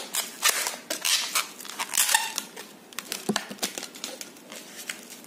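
Latex modelling balloon rubbing and squeaking under the fingers as bubbles are twisted into it: a run of short, irregular scrapes with a brief squeak about two seconds in.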